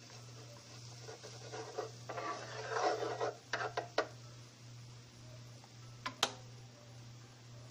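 Minced garlic frying lightly in melted butter in a nonstick pan, with silicone tongs scraping and stirring it over the pan's surface for the first few seconds. A single sharp click comes about six seconds in.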